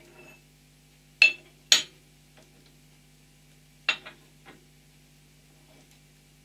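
Heavy steel parts clanking on a hydraulic press's steel bed: two sharp metal clanks about a second in, then a few lighter knocks around four seconds in, as the holed press block and a four-jaw chuck are set down.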